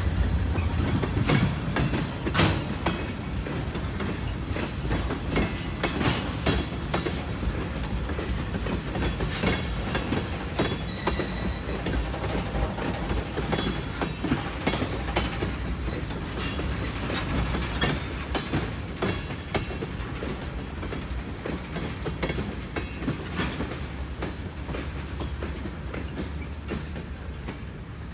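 Freight train tank cars rolling past: a steady rumble of wheels on rail with a running clickety-clack of wheel clicks and a few faint high wheel squeals, slowly getting quieter.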